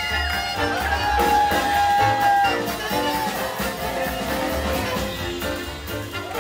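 Live swing jazz band playing. Long held lead notes slide up and down in pitch over a pulsing bass line and an even drum beat.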